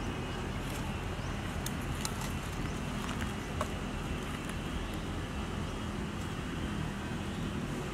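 Steady low background rumble with a faint even hum and a few faint, scattered clicks.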